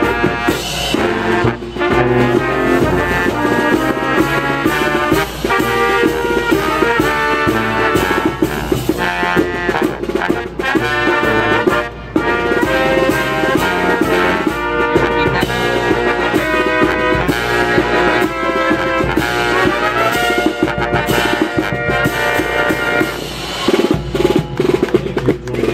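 A live brass band playing, with trombones and trumpets.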